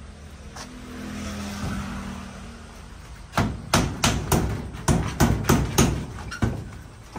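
A claw hammer nailing a board panel onto a wall: about ten quick strikes, roughly three a second, beginning a little over three seconds in. Before the strikes, a low hum swells and fades.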